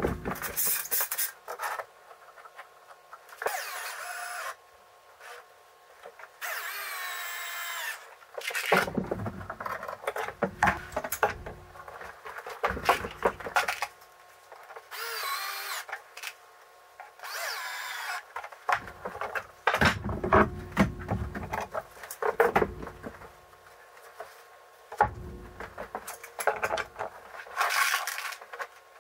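A cordless drill runs in about six short bursts, its whine wavering in pitch, with knocks and handling noises on the workbench in between.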